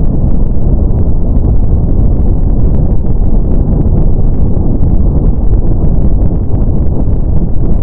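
Steady brown noise: a loud, even, deep rushing hiss, heaviest in the low end and without any tone or rhythm.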